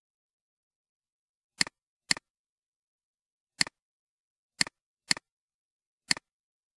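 Six computer mouse clicks, each a quick double tick of press and release: two pairs half a second apart and two single clicks in between.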